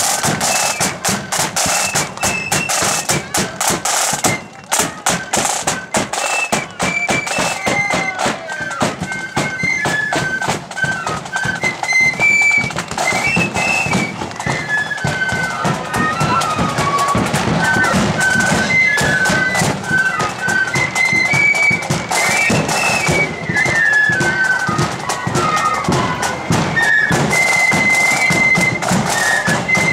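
Marching flute band playing a tune: flutes carry the melody over side drums and a bass drum beating out the march.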